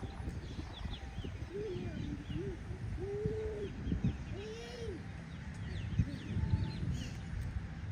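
Birds calling outdoors: a few low, arching coos in the first five seconds and scattered short, high chirps, over a steady low rumble.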